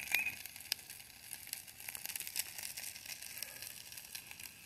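Small woodland creek running, a faint steady hiss of trickling water with many small clicks.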